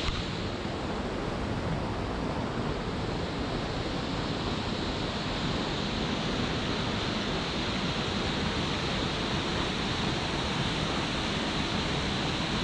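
Steady rush of a waterfall, an even roar of falling water that does not change.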